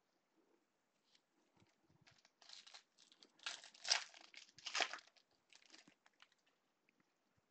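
Foil wrapper of a 2017 Bowman baseball card pack being torn open and crinkled by gloved hands: a run of rips and rustles starting about two seconds in, loudest around the middle, then dying away.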